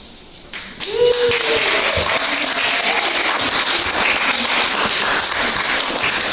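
Audience applauding: dense clapping breaks out about half a second in and keeps going steadily, with a voice briefly calling out near the start.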